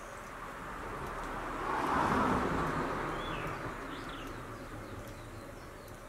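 A broad rush of noise swells to a peak about two seconds in and slowly fades. Over it come faint light taps of a Japanese pygmy woodpecker pecking at bark, and a short high falling bird call about three seconds in.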